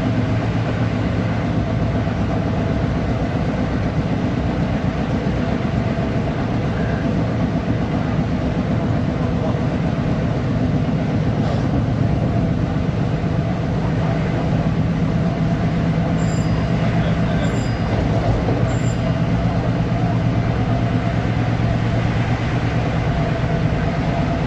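Long Island Rail Road M3 electric multiple-unit train running at a steady pace: a continuous rumble with a steady low hum.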